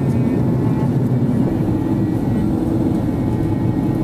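Steady, loud cabin noise inside an Airbus A330 airliner on approach: the even rumble of its jet engines and airflow over the fuselage, heard from a window seat.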